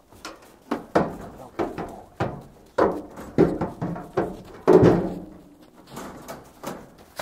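A goat's hooves clattering and knocking on a metal wire crate and pickup tailgate as it climbs out and jumps down. It is a quick run of sharp knocks, the loudest just before five seconds in, with a few fainter ones after.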